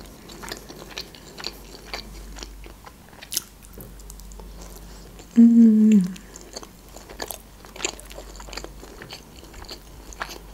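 Close-miked chewing of a bite of baked sushi roll: soft wet mouth clicks and smacks throughout. About halfway through comes a loud, short 'mmm' of enjoyment that falls in pitch.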